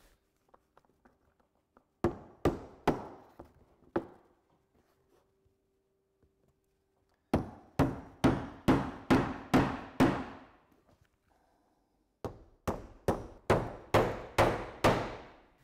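A hammer drives Onduline roofing nails through a corrugated roofing sheet into timber. The blows come in three runs of several quick strikes, each blow with a short ring, separated by pauses.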